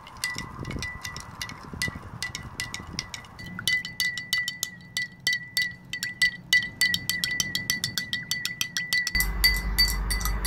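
Metal teaspoon stirring caustic soda dissolving in water in a glass tumbler, clinking against the glass with a short ringing tone each time. The clinks are sparse at first and quicken to several a second from about four seconds in.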